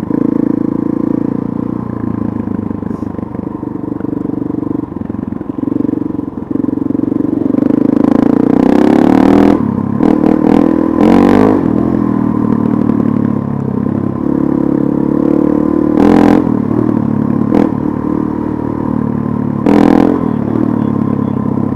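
Dirt bike engine running under way, heard from the rider's seat, its pitch rising and falling with the throttle and getting louder about eight seconds in. A few short, loud rushes of noise break in around the middle and near the end.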